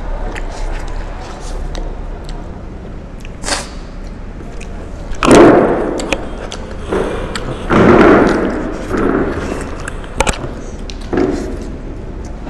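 People eating face-down from plastic plates without hands: clicks and knocks of the plates and bits of chewing and slurping, with a few loud noisy bursts about halfway through.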